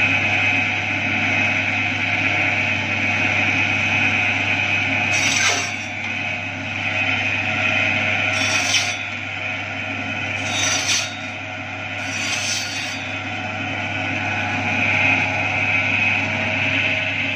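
Stainless-steel chicken cutting machine running with a steady motor hum and blade whine, with four short rasping cuts as a stick is fed through the blade, about five, eight and a half, eleven and twelve and a half seconds in.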